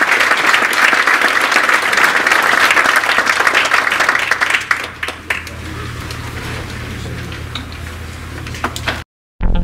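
Audience applauding, a dense patter of many hands that dies away about five seconds in. A few scattered claps and a low steady hum remain, then the sound cuts out briefly near the end.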